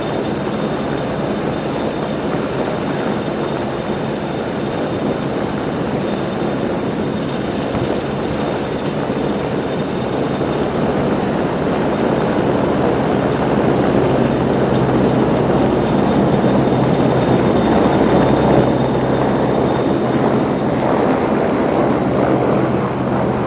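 Large military helicopter's rotor and turbine engines running close by, a steady dense rumble with a thin high whine, growing louder in the second half.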